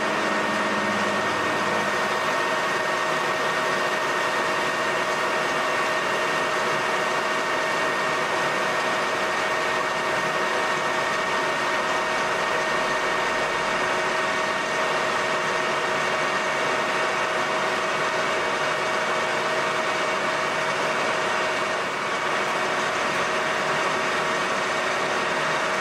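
Colchester Master 2500 centre lathe running under cut, its geared headstock giving a steady whine over the hiss of the tool turning the bolt blank. The sound dips briefly near the end, then carries on.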